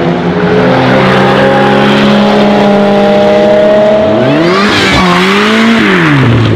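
A high-performance car engine pulls hard, its pitch climbing steadily. In the last two seconds it is revved sharply up and down twice.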